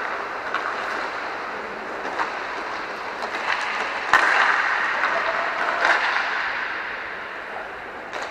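Inline hockey play: the rolling of skate wheels on the rink floor, with scattered clicks of sticks and puck. There is one sharp knock about four seconds in, and the rolling noise is louder after it, then slowly fades.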